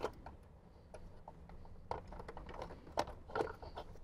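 Light plastic clicks and handling rustle as a Jeep Wrangler JK's Uconnect module is worked out of its dash mount and its wiring connectors unplugged, with a louder cluster of clicks about three seconds in.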